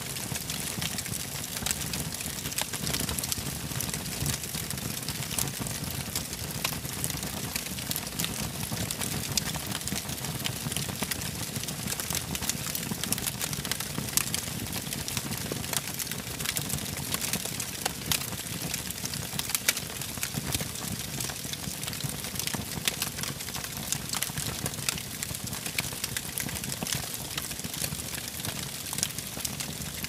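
Wood fire burning in a fireplace: a steady hiss and rush of flame with frequent small, sharp crackles and pops from the burning logs.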